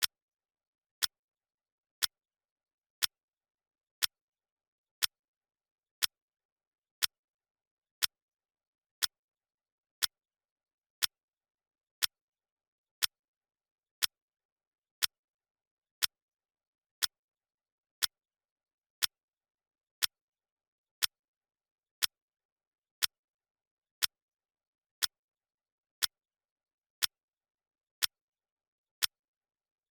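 Clock ticking sound effect: one short, sharp tick every second, evenly spaced, with dead silence between the ticks.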